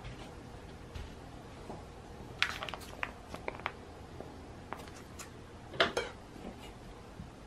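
Plastic sausage package being picked up and handled: short crinkling and rustling clicks in a few clusters, the loudest about six seconds in.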